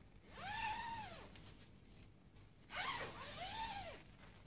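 An animal calling twice, each a drawn-out cry that rises and then falls in pitch, about a second long.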